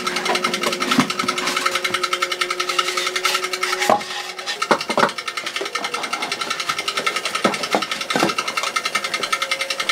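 A small motor running with a fast, even ticking throughout. A few sharp knocks and taps from handling the queen cage and the glass lid of a polystyrene box come over it; the loudest is about four seconds in.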